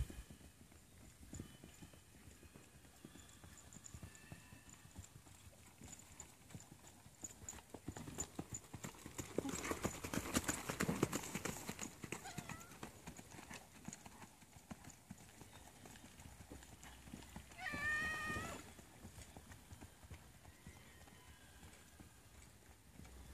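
Hoofbeats of a paint horse racking on turf and dirt, faint at first, loudest about ten seconds in as it passes close, then fading as it moves away. About eighteen seconds in there is one short, wavering high call.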